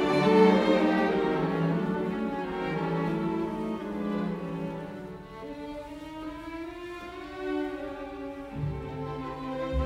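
Background music of slow, long-held bowed-string notes that grow quieter towards the middle. A low bass note comes in near the end.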